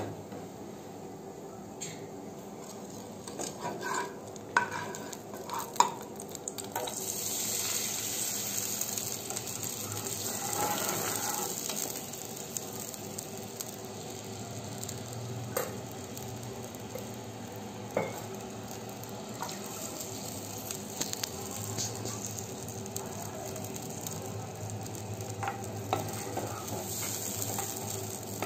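A steel ladle stirring a hot milky mixture in a nonstick pan on a gas stove. The mixture hisses and sizzles as it heats, loudest from about seven to twelve seconds in, and the ladle scrapes and taps against the pan a few times.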